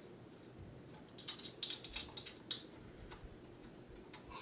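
Faint scattered clicks and light metallic taps of a bolt and nut being fitted by hand on a longarm motor-plate deck clamp, most of them between one and three seconds in.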